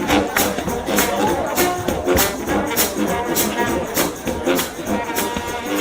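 Trombone-led gospel shout band playing over a steady, driving percussive beat.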